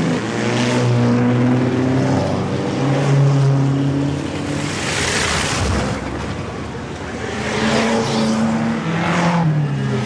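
Vintage racing car engines revving and driving past at close range, one car going by loudly about five to six seconds in. The engine pitch climbs and drops with the revs, falling away near the end.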